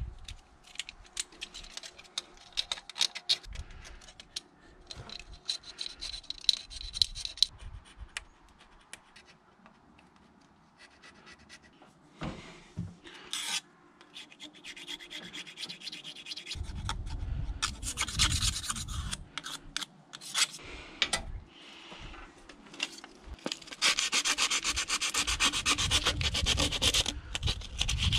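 Metal thermostat housing face being scraped and sanded by hand to clean it for a new gasket. Irregular scratchy strokes come first, then a quieter stretch, then steady back-and-forth sandpaper rubbing that is loudest over the last few seconds.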